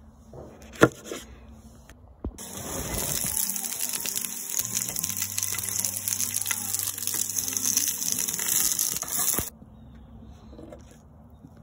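A knife chops once on a plastic cutting board, then about two seconds in sweet peppers and onions sizzle loudly in a hot cast-iron skillet for about seven seconds, cutting off suddenly.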